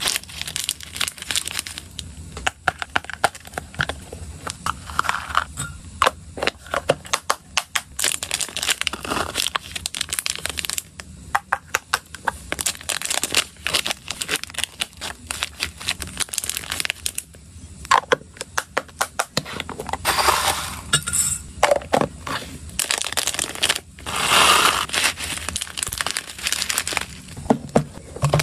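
Clear plastic snack bags and wrappers crinkling and rustling as they are handled and opened, mixed with many sharp clicks and taps from small dry treats such as sunflower seeds shifting in a bag and from hard plastic storage boxes.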